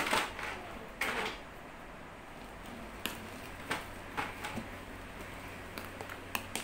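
Metal spoon stirring thick, foamy glue-and-shaving-foam slime in a bowl, clicking sharply against the bowl several times from about three seconds in. Two short scrapes near the start.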